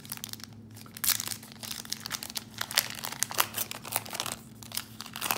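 Plastic trading-card packaging crinkling as it is handled and opened: a quick, irregular run of sharp crackles, loudest about a second in and again near three seconds.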